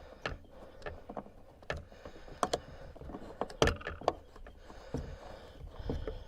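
Scattered light clicks and knocks with rustling, from a car's front seat belt webbing and its metal and plastic hardware being handled and fitted into place.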